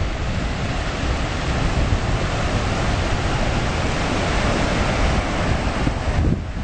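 Ocean surf, small waves breaking and washing up a sandy beach in a steady hiss, with wind buffeting the microphone as a low rumble underneath.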